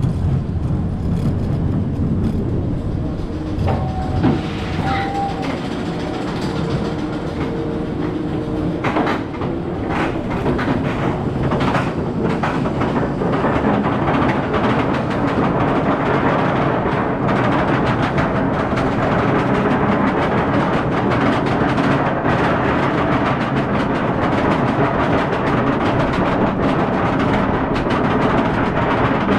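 SheiKra steel dive coaster train running on its track: a clicking mechanical rattle that grows from about ten seconds in into a steady loud rush of track noise and wind on a rider-worn camera.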